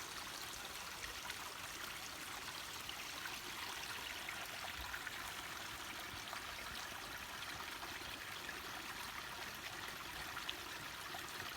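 A stream running with a steady rushing sound.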